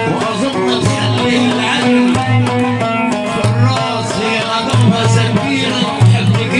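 Egyptian folk music: an oud playing over a steady, repeating low beat, with a man singing into a microphone.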